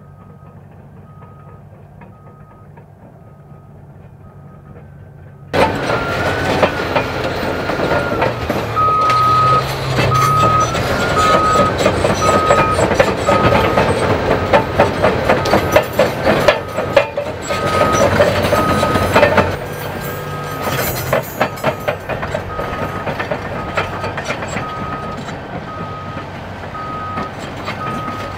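Cat D11 large dozer working with a reversing alarm beeping steadily: for the first five seconds only a distant engine rumble, then suddenly loud and close, the rapid metallic clatter of the track chain running over the sprocket and final drive with the diesel engine. The clatter is loudest without the final-drive sound dampers and eases somewhat from about twenty seconds in, when the dampers are fitted.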